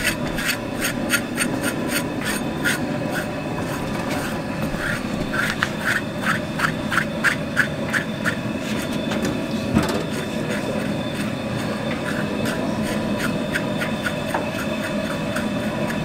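Metal bell-shaped hog scrapers rasping against a scalded hog's hide in quick repeated strokes, scraping off the hair. A single sharp knock sounds about ten seconds in.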